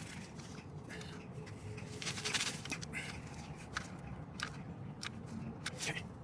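A series of short, irregular scrapes and clicks, about a dozen spread unevenly, over a faint steady background.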